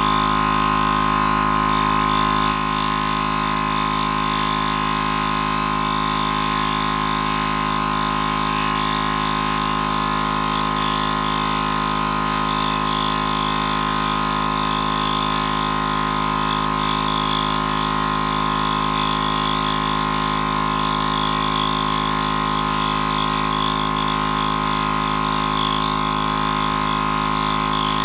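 Portable air compressor running steadily as it pumps a launcher's air tank up to about 150 psi, with a slight drop in loudness about two and a half seconds in.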